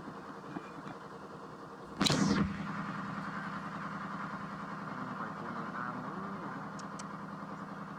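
A motor engine running steadily, with a short loud rush of noise about two seconds in.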